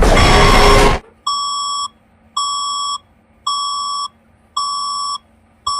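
A loud burst of noise cuts off about a second in, then an electronic emergency alert beeps steadily: five evenly spaced tones, each just over half a second long, repeating about once a second.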